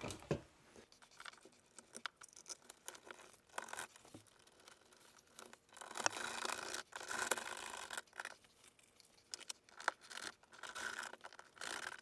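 Faint scrapes and small clicks as a light switch is pressed into its wall box and the wires are packed behind it, then a hand screwdriver turning the mounting screws, with longer scraping stretches about six seconds in and again near the end.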